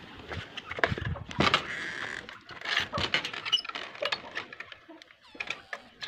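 Irregular knocks, clicks and rustles of footsteps and hands handling a wire-mesh bird cage, its wooden frame and door latch.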